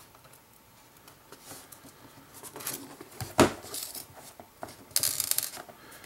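Small metallic clicks and clinks of tiny screws and the aluminium bottom case of a MacBook Air being handled on a table, with one sharper knock a little past halfway and a brushing scrape near the end as the laptop is moved.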